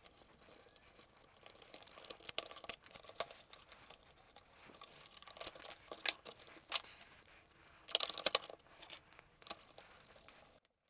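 Faint handling of small parts: scattered clicks and crinkling rustles as a fuel tank part is fitted to a radio-controlled lowrider car, loudest about eight seconds in.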